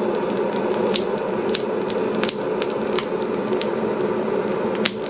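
Split logs burning in the open firebox of a wood-fired boiler, crackling with irregular sharp pops over a steady rushing noise.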